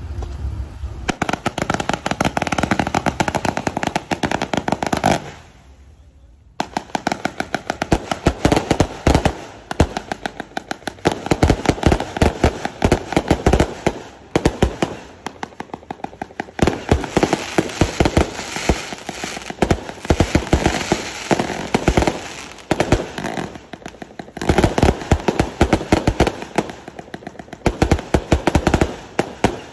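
A multi-shot firework cake firing rapid volleys of sharp reports, many shots a second, with crackling bursts overhead. The firing starts about a second in, stops briefly about five seconds in, then goes on again.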